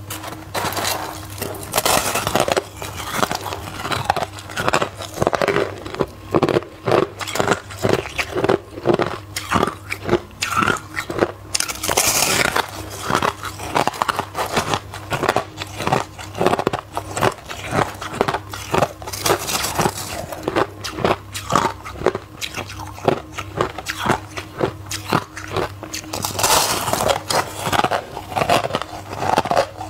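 A person biting and chewing mouthfuls of crushed white ice close to the microphone: a dense, continuous run of crisp crunches, over a low steady hum.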